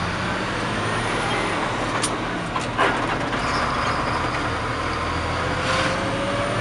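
Caterpillar diesel engine of a Sterling 8500 truck running as the truck drives off, heard from inside the cab, with a couple of clicks. Near the end the engine note rises as it picks up speed.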